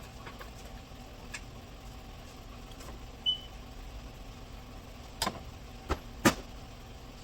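Sharp clunks and knocks, three in a little over a second near the end, as the radiator of a 2010 Chrysler 300 is worked free and lifted out. A short high beep comes about three seconds in, over a steady low hum.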